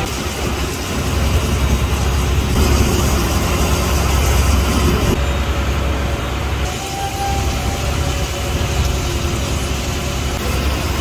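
Fishing boat's engine running steadily with a constant low hum.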